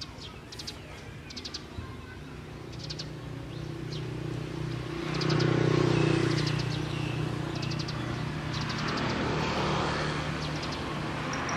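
A motor vehicle's engine hum that builds, is loudest about halfway through, then holds steady. Small birds chirp in short high trills on and off over it.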